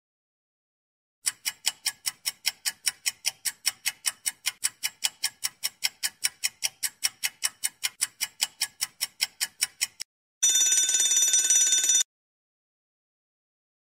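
Quiz countdown-timer sound effect: a clock ticks steadily at about four ticks a second for around nine seconds. It stops, and a bell rings for about a second and a half, signalling that time is up.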